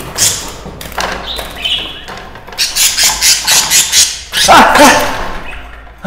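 A budgerigar squawking in protest as a hand grabs it, with a quick run of sharp squawks about halfway through and a wavering call near the end.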